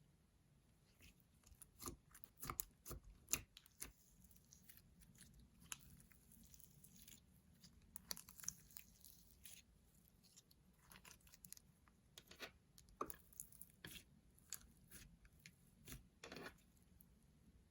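Slime being kneaded and squished by hand, making faint, irregular clicks and crackling pops.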